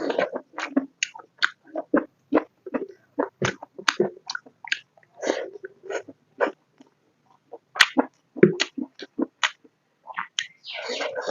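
Close-miked chewing and mouth sounds from eating rice and pork curry: irregular wet smacks and clicks, a few a second with short pauses, and a longer breathy noise about ten seconds in.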